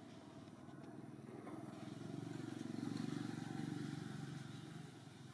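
A motor vehicle's engine running, swelling louder about two seconds in and fading again near the end, as a vehicle passing by would.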